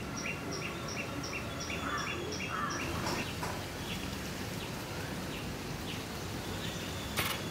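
Birds chirping over steady background noise: one bird repeats a short chirp about three times a second for the first three seconds, then scattered single chirps follow. A sharp click sounds near the end.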